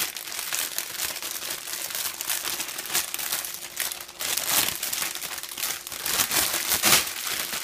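Clear plastic bags holding model-kit runners crinkling and rustling as they are lifted and shuffled by hand. There are louder rustles about halfway through and again near the end.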